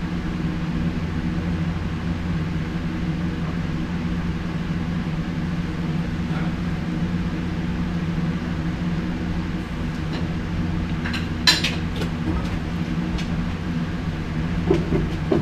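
Steady mechanical hum from a running machine, with a few sharp metallic clicks about eleven to twelve seconds in.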